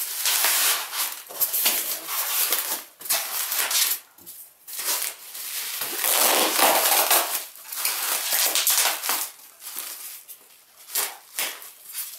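Thin plastic packaging bag crinkling and rustling as it is handled, in irregular bursts, with a few short clicks near the end as small metal parts are handled.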